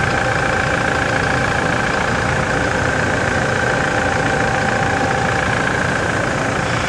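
Toyota Hilux engine idling steadily, heard from beneath the truck beside the newly fitted power steering rack, with a steady high tone over the idle.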